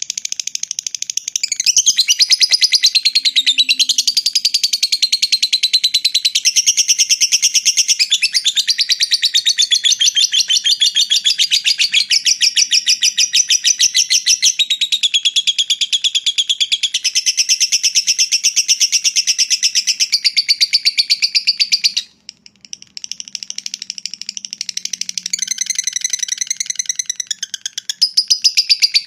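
Lovebird's long 'ngekek' song: a fast, high-pitched chattering trill held on for many seconds. It breaks off briefly about 22 seconds in and comes back quieter, then returns at full strength near the end.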